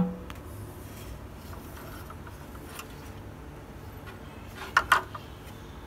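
A 3D-printed plastic touch-plate holder with its metal disc being handled: light rubbing and a few faint clicks, then two sharp clicks close together about five seconds in, over a low steady hum.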